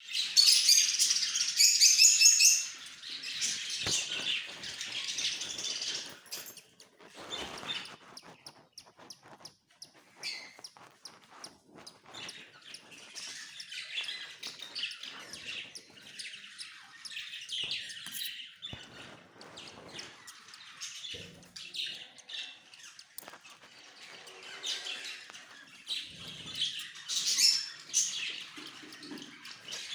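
A group of small pet parrots kept as 'love birds' chirping and twittering rapidly. They are loudest in the first couple of seconds and again near the end, with quieter chatter in between.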